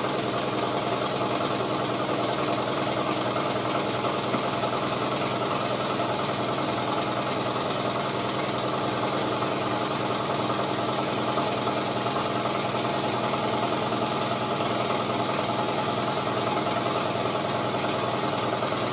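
Steady hum of a motor-driven shop machine running at an even, unchanging level.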